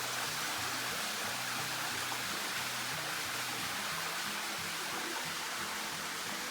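Steady rush of flowing creek water and waterfall.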